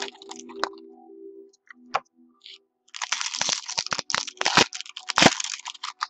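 Foil trading-card pack wrappers being torn open and crinkled: a few scattered clicks, then dense crackling with sharp snaps from about halfway through.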